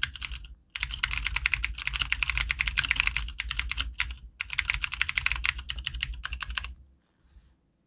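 Fast typing on a Cherry G80-3000S TKL keyboard with clicky Cherry MX Blue switches and a plastic case, many crisp key clicks a second. It comes in three runs with brief pauses about half a second and four seconds in, and stops near the end.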